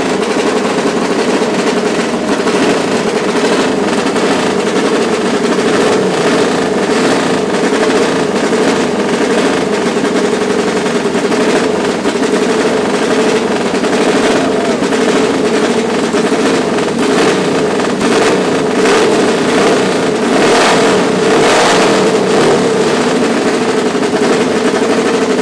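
The V-twin engine of Burt Munro's 1920 Indian Scout streamliner running loud with a rapid, rattling exhaust beat, revving harder for a couple of seconds about twenty seconds in.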